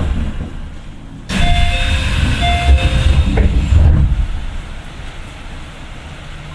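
Keio 9000 series train running, heard from inside the car: a steady rumble of wheels on rail. About a second in, a sudden loud rush with a few steady tones in it lasts about three seconds, then it settles back to quieter running noise.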